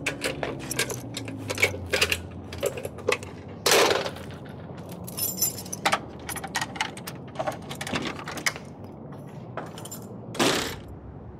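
Keys jangling and a run of metallic clicks and clinks as locks on a barred iron gate and a front door are worked open, with a louder clatter about four seconds in and another near the end.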